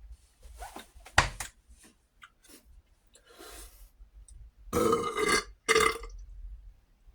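A man forcing out a belch after drinking cola, with two burps about five and six seconds in. The attempt falls short of the big, loud belch intended. A sharp knock comes about a second in.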